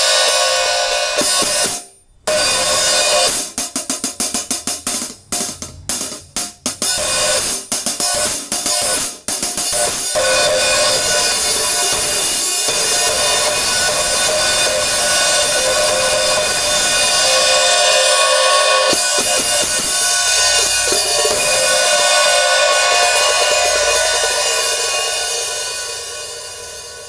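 14-inch Zildjian ZXT Titanium Solid hi-hats played as a sound test after a crack in the cymbal was repaired. A bright metallic wash is cut off briefly about two seconds in, then comes a run of short, choked strokes, then a long ringing wash that fades near the end.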